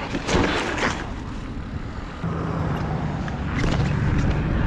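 Wind buffeting the camera microphone with tyre rumble from a mountain bike coasting downhill on a paved road, with a few knocks early on and a step up in loudness about two seconds in.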